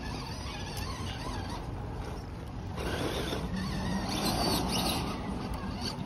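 Small electric motors of radio-controlled crawler trucks whining as they climb a dirt trail, over a steady low rumble; the whine is a little louder in the second half.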